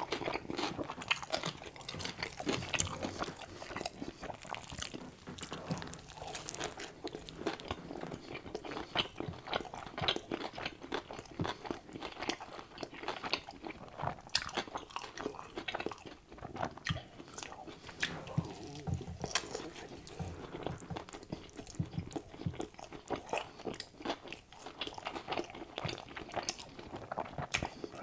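Close-miked eating of a double cheeseburger: bites and steady chewing, a dense stream of small wet clicks and smacks.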